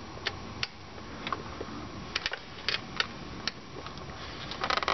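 Scattered sharp metallic clicks and taps of a screwdriver working at the distributor cap screws, with a quick cluster of clicks near the end, over a faint steady hum.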